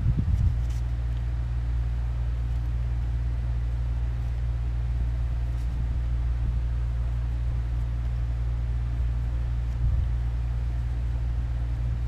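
Steady low hum, with a few faint light ticks.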